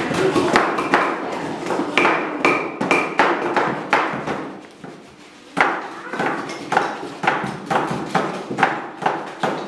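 Mallets knocking carving chisels into wood, several workers at once, giving irregular, overlapping sharp knocks a few times a second, with a short lull about five seconds in.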